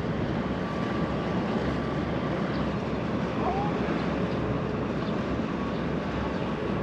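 Steady outdoor seaside noise: wind blowing across the microphone with the wash of the sea behind it.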